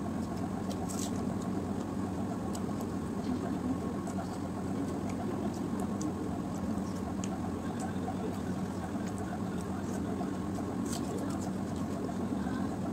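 A steady low mechanical hum runs at an even level, with a few faint soft clicks of eating by hand from a steel plate.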